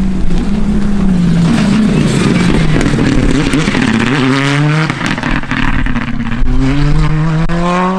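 Hyundai i20 R5 rally car's turbocharged four-cylinder engine at full competition pace: the note drops as it slows for a chicane, then climbs as it accelerates away, with a gear change partway through and the revs rising again.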